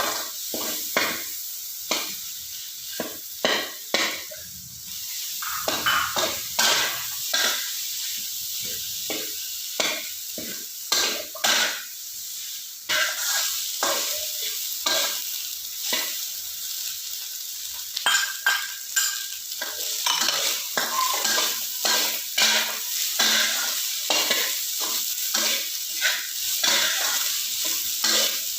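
Fried rice with Chinese sausage being stir-fried: a steady sizzle, with a spatula scraping and knocking against the pan many times at an uneven pace.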